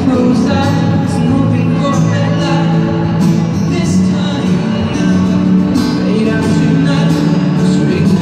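Live pop song played over a stadium PA: a male voice singing a slow melody over acoustic guitar, heard from the stands with the stadium's echo.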